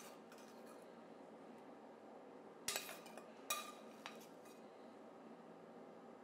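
A metal serving spoon clinking twice against a plate, then tapping once more faintly, as tomato sauce is spooned onto ravioli; each clink rings briefly.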